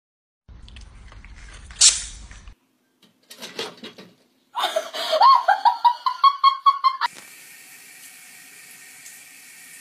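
A string of short clips: a sharp click over some noise, then a loud run of rapid pitched laughter, several peaks a second, then from about seven seconds in a bathroom tap running a steady stream into a sink.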